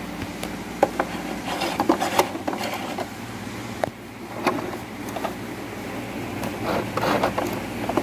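Cloth rustling and rubbing as the fabric is handled and drawn from under a portable sewing machine's presser foot, with scattered light clicks in a few clusters, over a steady low hum.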